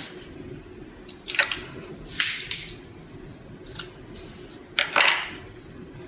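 Short snips and rustles of close hand work, about five over a few seconds: scissors trimming excess Kevlar yarn at a fibre-optic cable end, with small parts being handled.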